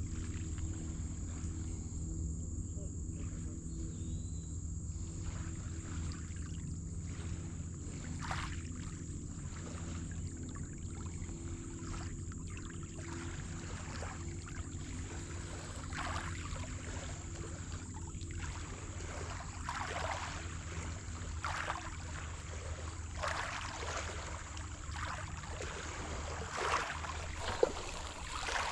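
A boat motor running steadily at an even speed, with a constant high-pitched hum over it and scattered short scuffs and splashes of noise that come more often in the second half.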